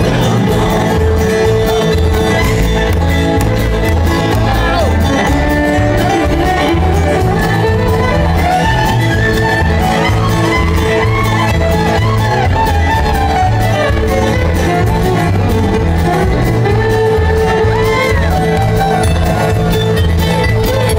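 Live bluegrass band playing an instrumental break: a fiddle carries the melody over strummed acoustic guitars, banjo and an upright bass walking a steady beat.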